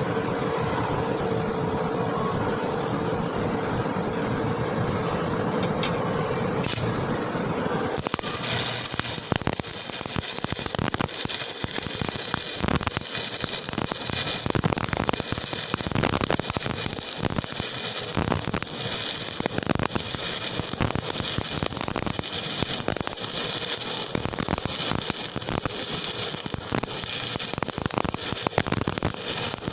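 A steady machine hum, then about eight seconds in a stick-welding (SMAW) arc strikes and crackles steadily as a bead is run.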